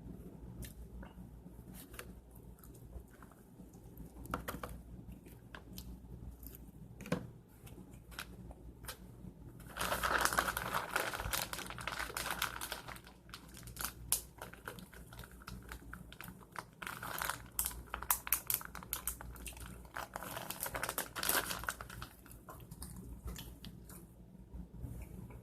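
Plastic food packet crinkling as it is handled and torn open, loudest about ten seconds in and again in several rustling spells later, with scattered small clicks and chewing between.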